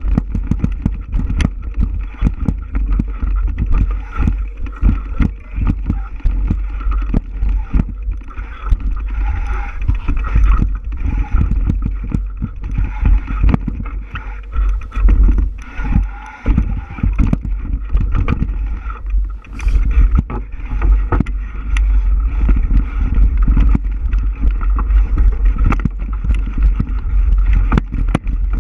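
Wind buffeting the microphone and a steady low rumble, with many irregular knocks and rattles as the bike jolts over the trail surface.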